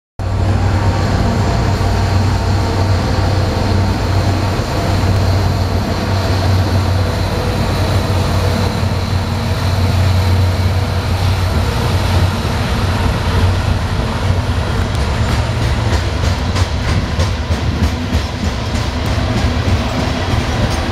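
Norfolk Southern diesel locomotives passing with a steady low engine drone. About two-thirds of the way through, the coal hopper cars take over, their wheels clicking rhythmically over the rail joints.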